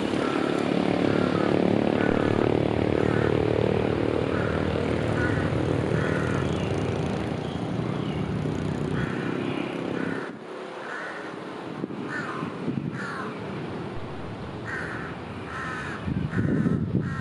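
Diesel locomotive's engine rumbling as it hauls a freight train of flat wagons, loudest in the first few seconds and fading about ten seconds in. A bird calls over and over in short bursts throughout.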